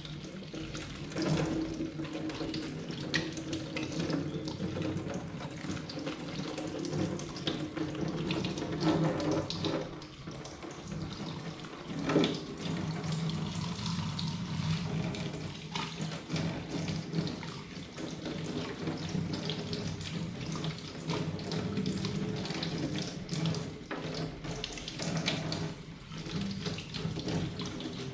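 Kitchen tap running into a stainless-steel sink as a cabbage, a knife and spring onions are rinsed under the stream, the water splashing unevenly as they are turned in it, with an occasional knock.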